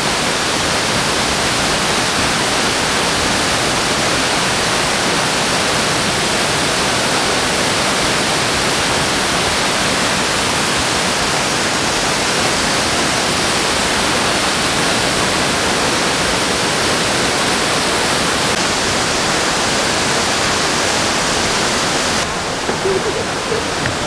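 Steady rush of water from a tall waterfall, an even noise without let-up; its high hiss thins a little a couple of seconds before the end.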